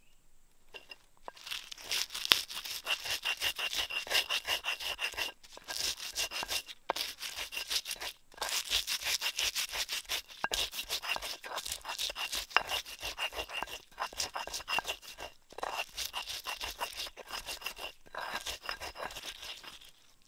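Wooden pestle grinding fresh chilies and salt against a flat stone mortar: rapid rubbing strokes, several a second, starting about a second in and broken by a few brief pauses, as the chilies are crushed into a coarse paste.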